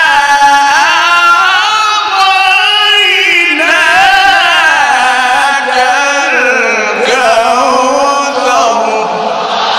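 A male qari's voice in melodic Quran recitation (tilawah) through a microphone: one long ornamented phrase of held, wavering notes that climbs and then sinks in pitch before breaking off near the end.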